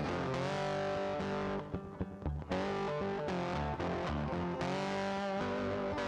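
Background music: a guitar track with distorted electric guitar, briefly thinning out about two seconds in.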